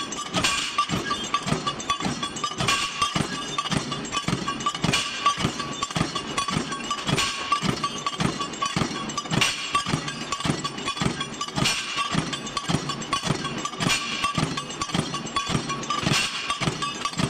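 Mechanical punch press cutting steel plates: a rapid clatter of about three knocks a second over a steady whine, with a heavier cutting stroke about every two seconds as each plate is fed in.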